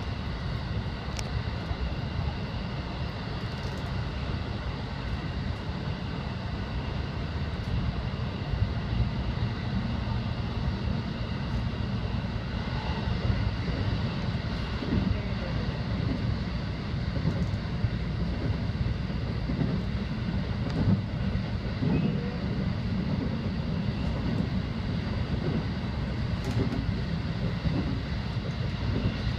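Electric commuter train running along the line, heard inside the front car: a steady low rumble of wheels on rails and running gear, with a faint steady high whine.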